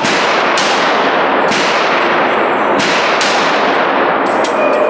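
A string of handgun shots, about seven in under five seconds and unevenly spaced, each with a sharp crack and a ringing tail, over steady loud noise.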